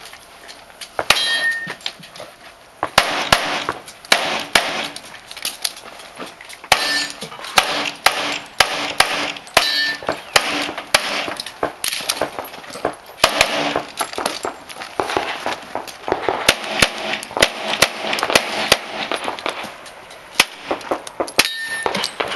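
Pistol shots fired in quick strings through a timed course of fire, with short breaks between strings, mixed with short ringing metallic clangs.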